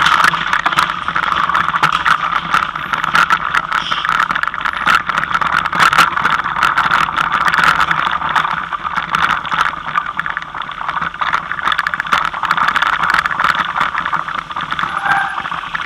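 Mountain bike ridden over a rough dirt and stone track, heard from on the bike: a steady rushing noise with many sharp clicks and rattles.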